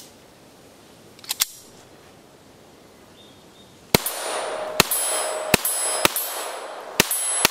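Norinco TT Olympia .22 LR semi-automatic pistol firing about six shots in quick, uneven succession, starting about four seconds in. Several shots are followed by a brief ringing tone.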